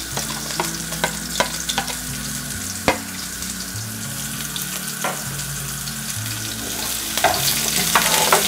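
Chopped onion frying in hot ghee in a metal pan: a steady sizzle, broken by scattered sharp clicks as it is stirred.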